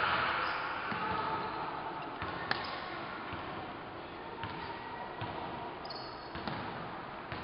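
Basketball being bounced on a hardwood gym court: a few scattered sharp bounces and thuds over the steady background noise of the hall, with a brief high squeak about six seconds in.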